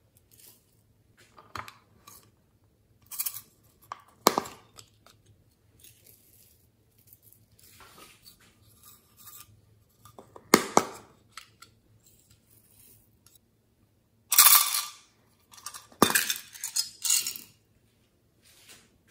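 Small plastic containers handled and tapped, with glitter and small beads shaken out onto slime in a glass tray. Scattered light clicks and clinks, then two louder rattling, rustling stretches about three-quarters of the way in.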